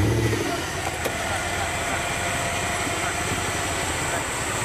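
Off-road 4x4 vehicle's engine idling steadily, with a brief louder swell right at the start.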